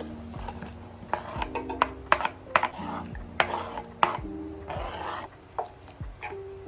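Kitchen knife chopping through a firm vegetable onto a plastic cutting board in a string of sharp knocks. Then a wooden spatula scrapes the chopped pieces off the board into a pan of broth, in two longer scrapes.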